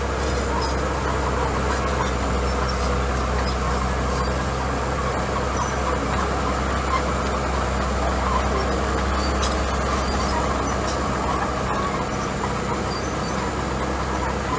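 A small crawler bulldozer's diesel engine running steadily as it pushes gravel, a low even drone with no change in revs.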